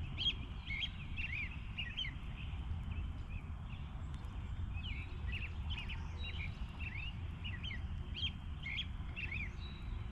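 Songbirds chirping over and over in short, quick notes, over a steady low rumble.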